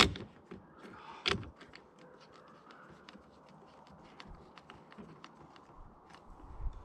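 Clicks and knocks from working the charging handle of a Hatsan Piledriver air rifle, which will not come back far enough to lock. There is a sharp click at the start and another about a second later, then faint ticks of handling.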